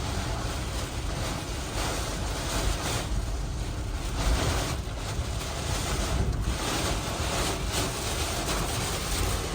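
Hurricane-force winds of Hurricane Milton, a dense rushing noise that rises and eases in gusts, with wind buffeting the microphone.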